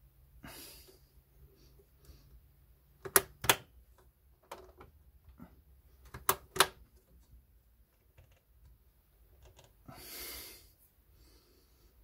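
Plastic DIMM slot ejector latches on an HPE ProLiant DL380 Gen9 server motherboard snapping open as two DDR4 registered RAM modules are released. Two pairs of sharp clicks, each pair about a third of a second apart and the pairs about three seconds apart, with fainter ticks between them and a brief soft hiss near the end.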